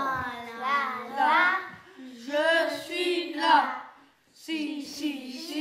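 Children singing a song: sustained, gliding sung phrases, with a short pause about four seconds in before the singing resumes.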